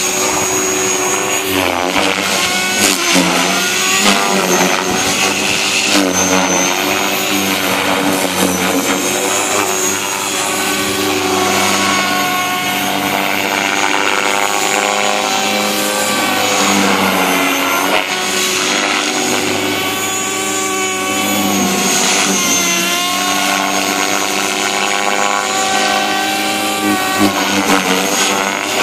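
Align T-Rex 500X electric RC helicopter in flight, its rotor blades whirring and its motor whining, the pitch rising and falling continually as it manoeuvres.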